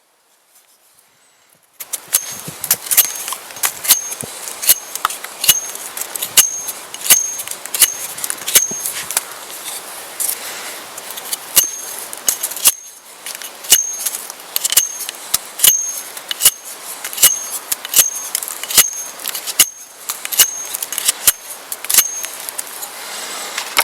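A steady series of sharp metallic strikes, a little more than one a second, each with a short high ring. The strikes start after a brief silence and pause once about halfway through.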